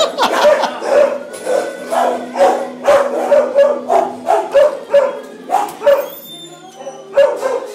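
Cairn terrier barking rapidly and repeatedly, about three sharp barks a second, at a pig ear treat it is scared of. The barking pauses about six seconds in, then two more barks come near the end.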